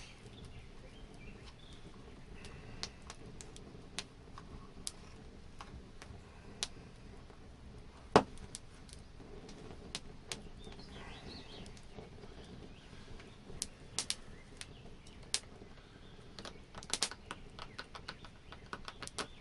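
Scattered small clicks and taps of hands working a hand-sewn pouch and its gut sinew while tying off the end of a stitched seam. One sharper click about eight seconds in, and quick runs of ticks near the end.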